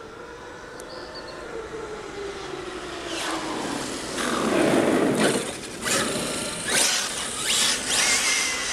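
Radio-controlled Traxxas X-Maxx monster truck and Hobao VS2 buggy driving on asphalt. A motor whine falls in pitch over the first few seconds. From about three seconds in, loud rushing tyre and motor noise comes in several surges as the cars pass near, with a high motor whine near the end.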